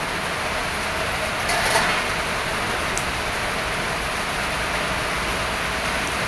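Fish frying in oil in a steel wok over a wood fire, a steady sizzle with a brief louder burst about a second and a half in and a single sharp click a little later.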